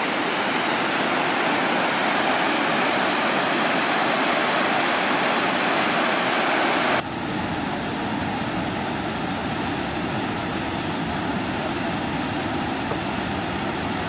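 White water of a small waterfall rushing over a broad sandstone ledge, a steady, even rush. About halfway through it changes abruptly to a slightly quieter, deeper rush.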